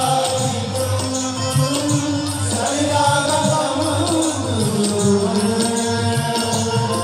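Devotional song: a voice singing long held notes over instrumental music.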